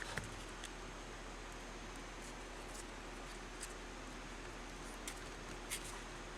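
Faint handling sounds of a rubber weatherstrip being pressed by hand into a vent window frame: a few small scattered clicks and rubs over a steady background hiss.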